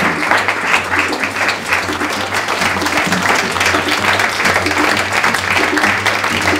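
Audience applauding, with background music starting under the clapping.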